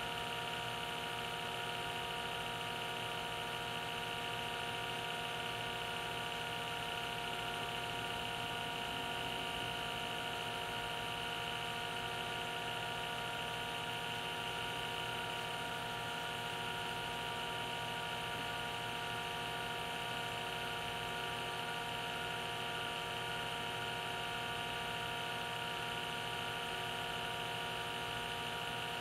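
Small electric vacuum pump running steadily: a constant hum of several fixed tones with a hiss over it.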